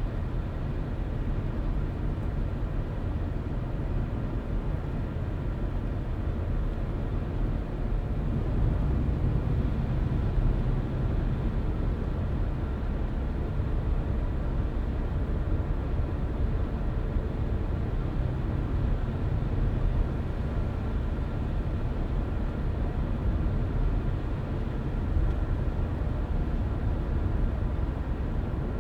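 Car driving at a steady speed: a continuous low rumble of road and tyre noise with engine hum, a little louder from about eight seconds in.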